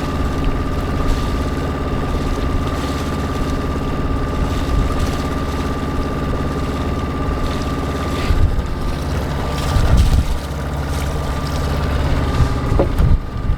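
Small marine diesel engine running steadily at a constant speed, with wind buffeting the microphone in a few gusts in the second half.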